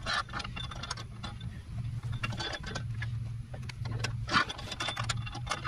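Small metal hardware clicking and clinking as bolts and nuts are handled and threaded by hand into a steel mounting bracket, irregular light ticks with a sharper clack about four seconds in.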